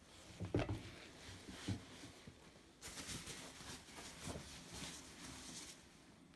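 Heavy, thick rubber rainsuit being handled: a few soft thumps and a stretch of rubbing, rustling noise from the rubber near the middle.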